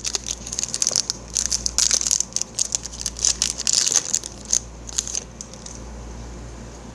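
Foil wrapper of a Yu-Gi-Oh booster pack crinkling and crackling as it is handled and torn open, in quick irregular bursts that stop about five seconds in.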